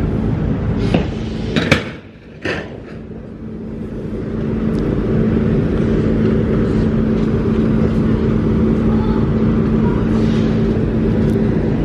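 A running engine's steady drone with a held hum. About two seconds in it drops away briefly, with a couple of sharp knocks, then builds back over the next two seconds.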